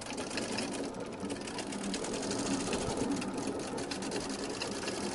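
Freewheeling crankshaft mechanism of a float-driven wave engine, turned by the rising and falling floats, making a fast, continuous mechanical clicking and rattling over a steady hum.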